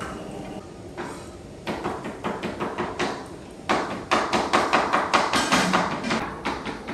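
A rapid series of hard knocks or strikes: a short run about two seconds in, then a louder, faster run of about seven a second that stops shortly before the end.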